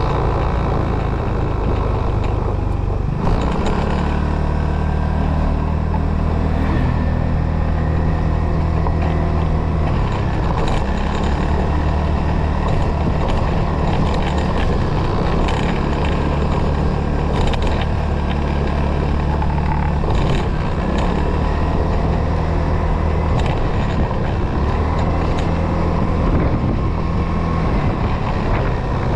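Motorcycle engine running while riding, its note shifting with throttle and gear changes several times, over steady wind and road noise on the onboard microphone.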